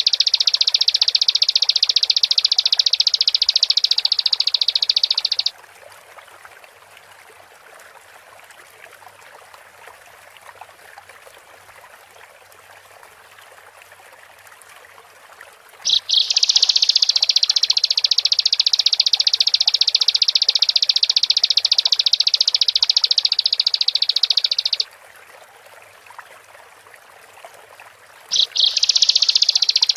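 Bar-winged prinia (ciblek) song: long, rapid, high-pitched trilling. One spell ends about five seconds in, another runs for about nine seconds from the middle, and a third starts near the end. Between the spells there is a faint background hiss.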